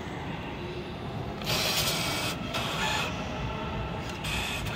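Bill acceptor of a subway-station card recharge machine drawing in a paper banknote: a mechanical whir about a second and a half in lasting nearly a second, then two shorter whirs, over a steady background hum.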